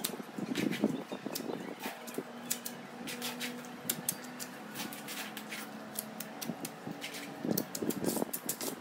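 Wet cement mortar being worked by hand and with a mason's trowel: scattered scrapes, dabs and light taps of mortar and steel on stone, with a faint steady hum through the middle.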